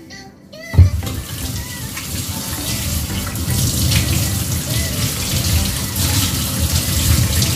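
Kitchen tap running steadily into a sink, after a sharp knock about a second in.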